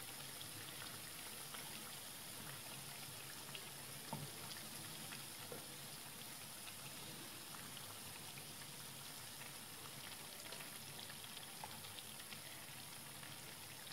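Hot oil sizzling softly around unniyappam frying in a multi-cavity unniyappam pan, with a few faint clicks as a stick turns the balls over.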